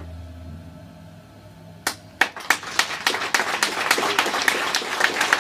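The band's last held low note fades out, then after a short hush scattered hand claps start about two seconds in and quickly build into full audience applause.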